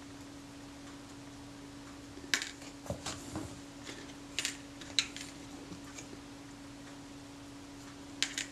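Small metal camera parts giving a handful of light clicks and clinks as they are handled with a fine tool, mostly between about two and five seconds in, over a steady low hum.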